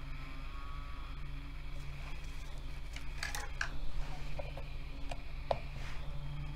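Steady low electrical hum, with a few faint scratches and soft taps of a watercolour pencil and hand on paper, a little past the middle.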